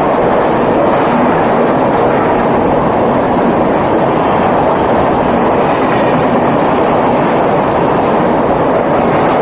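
Mumbai suburban local train, an electric multiple unit, running on the rails: a loud, steady rumble of wheels and carriages.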